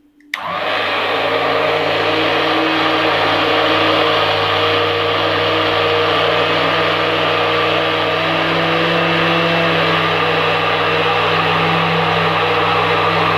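Electric immersion blender switched on just after the start, then running steadily in a steel pot of lemon-soured cream and cold water. It is churning the cream so that the butter separates from the buttermilk.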